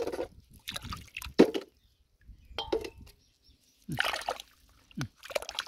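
Wet squelching and sloshing of a hand working in soft mud and shallow water, pulling clams out of a muddy bank, in several short separate bursts.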